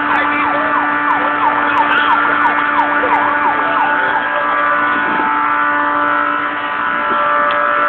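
A motor vehicle engine running steadily, most likely a fire truck, making a constant drone of several fixed pitches over a hiss. For the first three seconds or so, a quick series of short falling chirps, about three a second, rides over the drone.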